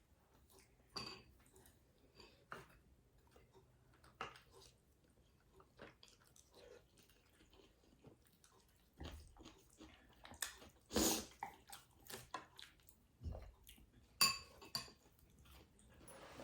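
Someone eating: quiet chewing with scattered clicks and clinks of utensils on dishes, the sharpest about eleven and fourteen seconds in.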